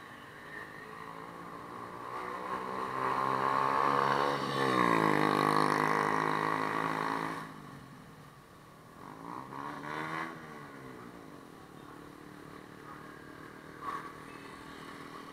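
Motorbike engines in night street traffic, heard from a moving motorbike. One engine note climbs over a few seconds, drops sharply about four and a half seconds in, and runs loud until it cuts off suddenly at about seven and a half seconds. A shorter rise and fall follows around ten seconds, then a steadier, quieter road hum.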